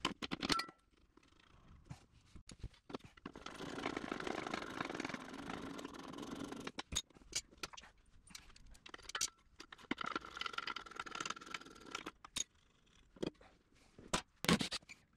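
Small hand ratchet clicking in quick runs as the bolts holding a trencher's rubber guard are loosened, between scattered metal clinks and scrapes.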